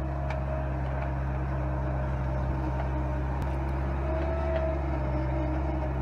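Skid steer engine running steadily under load, driving a hydraulic tree saw whose toothed blade is cutting into a mesquite trunk; a constant low hum with a higher whine that wavers slightly, and a few faint clicks.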